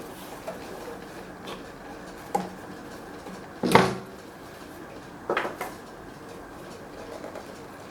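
A few separate knocks and clunks, like something being handled or set down in a small room, over a low steady hiss. The loudest comes a little before halfway, with two quicker ones about two-thirds of the way through.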